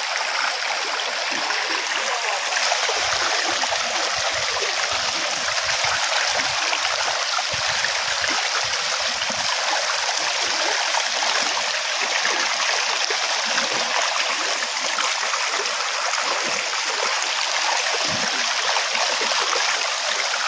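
Fast-flowing, swollen muddy river rushing past steadily.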